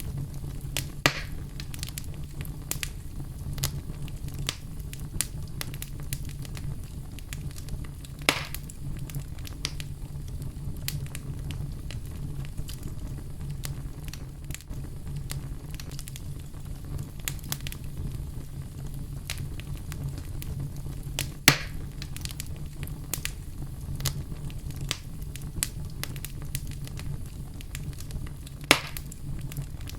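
Wood fire burning in a fireplace: a steady low rumble under a constant light crackle, with four louder pops spread through.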